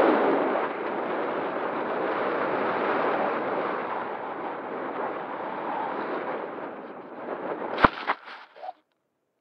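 Wind rushing over the onboard camera of a flying-wing RC glider in flight, fading slowly. Near the end there is a sharp thud and a few smaller knocks as the glider hits the ground, then the sound cuts off.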